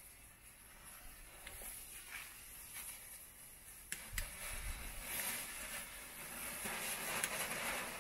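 Several Weco 'Tolle Biene' spinning bee fireworks fizzing as they spin on the ground. The hiss grows steadily louder from about halfway through, with a couple of short clicks.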